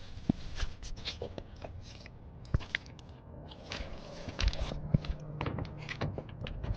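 Scattered clicks, knocks and scuffing handling sounds, with a faint low steady hum coming in about four seconds in.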